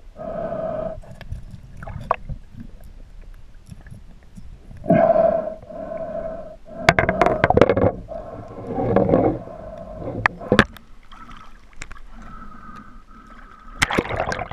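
Sound heard underwater in a stony river: a pitched droning hum that comes and goes in stretches of about a second, with sharp clicks and knocks, several of them bunched together around the middle and again near the end.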